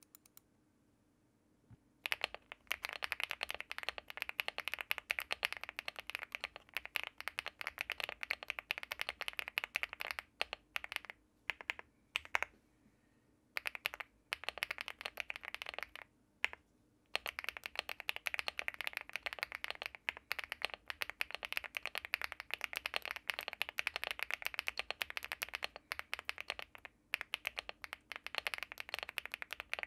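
Rapid typing on a Leobog Hi75 mechanical keyboard with HMX Violet switches, a PC plate, a gasket-mounted aluminium case and Cherry-profile PBT keycaps. A dense run of keystrokes starts about two seconds in, thins to a few scattered presses around the middle, then picks up again.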